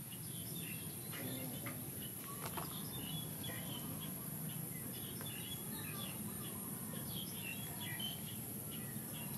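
Quiet outdoor ambience: many faint, short bird chirps scattered throughout, over a steady high insect drone.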